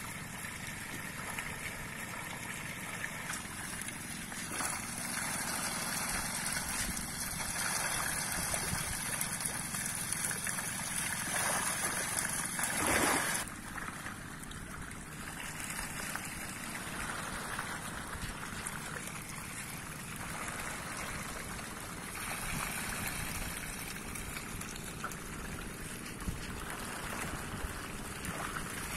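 Continuous splashing and churning of water as a dense school of carp thrash at the surface in a feeding frenzy, competing for thrown feed. It swells louder about thirteen seconds in, then eases.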